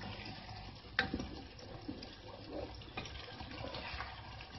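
A spatula stirring chicken through a thick, sizzling gravy in a nonstick pot, wet stirring and scraping with a sharp knock of the spatula against the pot about a second in and fainter knocks later.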